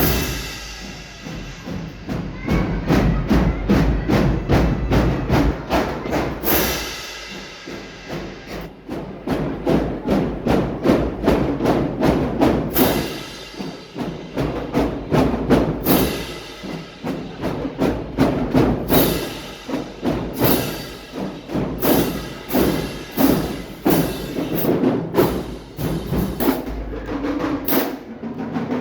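Marching band playing: brass over a drumline, with frequent sharp drum and rim hits.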